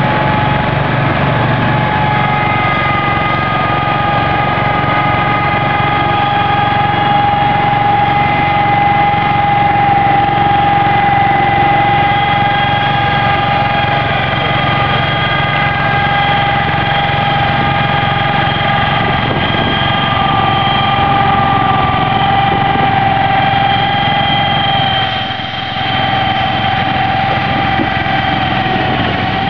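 Hydrostatic Cub Cadet garden tractor running steadily under load as it pulls a weighted sled, with a sustained high whine over the engine note. The loudness dips briefly near the end.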